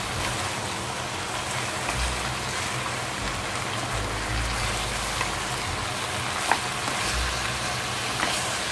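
Chicken and pork with ginger sizzling steadily in a nonstick frying pan while being stirred with wooden utensils, with a few sharp clicks of wood against the pan, the loudest about six and a half seconds in.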